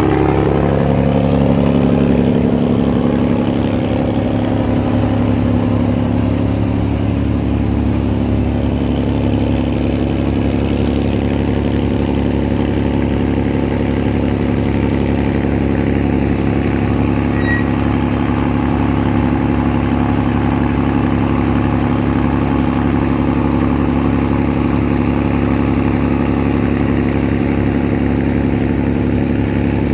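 An engine running steadily with an even, unchanging drone, easing off slightly about three seconds in.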